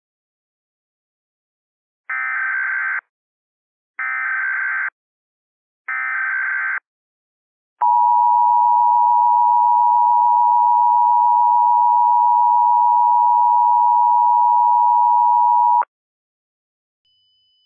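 Emergency Alert System SAME header: three short bursts of digital data tones, about a second apart, then the EAS two-tone attention signal held as one steady, loud tone for about eight seconds before it cuts off. Together they announce an emergency alert broadcast.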